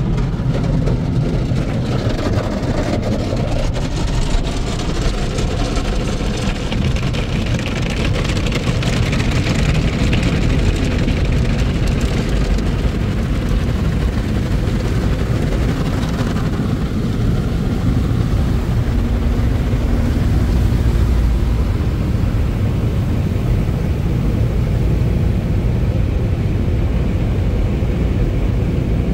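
Motor City Wash Works tunnel car wash heard from inside the car: water spraying and sheeting over the windshield and body, then the tunnel's blower dryers running as the car reaches the exit. A loud, steady noise throughout.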